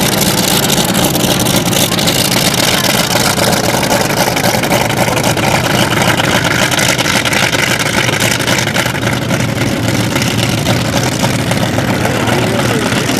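Hawker Sea Fury's big radial engine running steadily as the fighter taxis along the runway, loud and continuous with no change in pitch.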